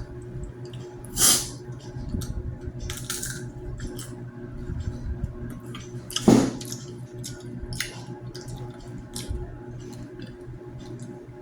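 Street food being stirred together with its sauce: wet squishing and scattered clicks of a utensil, with two louder knocks, about a second in and about six seconds in, over a steady low hum.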